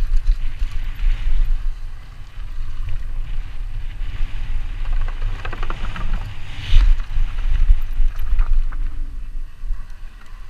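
Wind rumbling on a helmet camera's microphone while a downhill mountain bike runs over a dirt trail, with a cluster of clicks and rattles from the bike and its tyres on the rough ground about five to seven seconds in. The rumble eases near the end.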